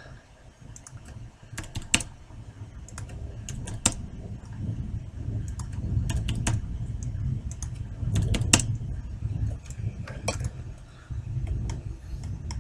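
Computer keyboard keystrokes and clicks at irregular intervals as values are typed into fields, over a low rumble.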